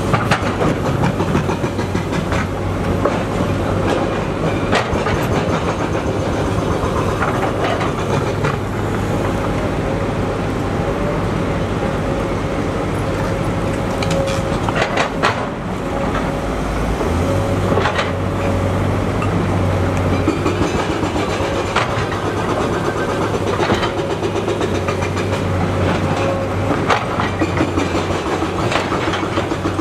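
Sany SY240C-9 crawler excavator working: its diesel engine runs steadily under load with a constant hum and whine, while the bucket scrapes and clanks in rock and soil several times.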